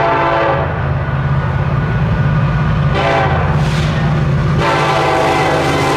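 Locomotive air horn sounding over the steady rumble of a passing train: a blast ends about half a second in, short blasts follow about three seconds in, and a long blast begins near the end.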